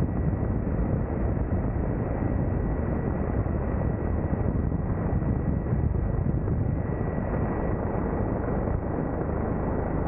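Military helicopter in a hover, heard from its open side door: a steady, dense rotor and engine noise mixed with wind buffeting on the microphone, with a thin steady whine above it.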